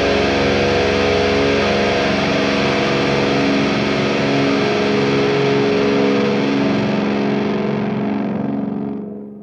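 A heavily distorted seven-string electric guitar chord, a Jackson Juggernaut HT7 tuned to drop F# and played through a Line 6 Helix LT, held and left to ring as a steady drone. It fades away near the end.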